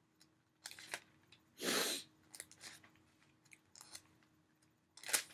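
Thin Bible pages being handled and turned: a few soft crisp rustles and clicks, the longest a swish about two seconds in.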